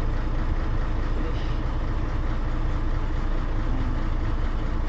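Mercedes-Benz truck's six-cylinder diesel engine idling steadily.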